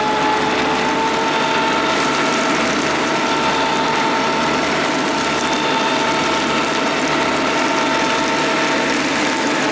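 Kubota D1105 three-cylinder diesel engine of a Madvac ride-on vacuum running steadily, with a mechanical clatter and a steady whine over it.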